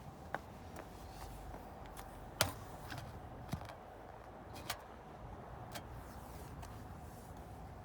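Outdoor air-conditioning unit running with a faint steady hum. A few sharp clicks stand out over it, the loudest about two and a half seconds in.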